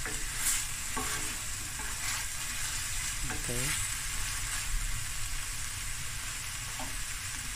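Onions sizzling as they fry in a stainless steel frying pan, with a wooden spoon stirring and scraping them across the pan.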